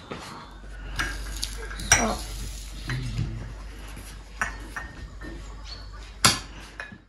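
Dishes and cutlery clinking at a table: a glass tea cup set on its saucer and plates handled, giving a handful of sharp clinks, the sharpest about six seconds in.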